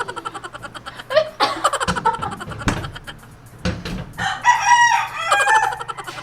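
A rooster crowing, one long call about four seconds in.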